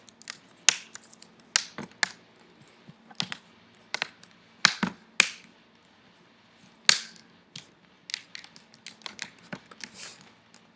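Plastic laptop screen bezel being pressed onto the lid, its clips snapping into place in an irregular series of sharp clicks, with several louder snaps.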